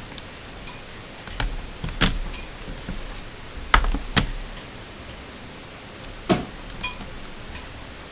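Irregular clicks and light knocks of small plastic and metal laptop parts being handled and pried apart during disassembly, about a dozen in all, the sharpest about two seconds in and near the middle, over a steady hiss.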